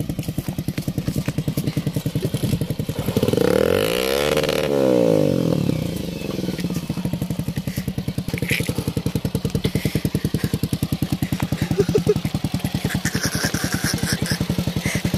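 Motorcycle engine idling with an even putter, revved up and back down once about three to five seconds in.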